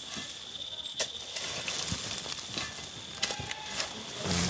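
Crickets trilling in a steady high continuous tone, with scattered light clicks and knocks over it.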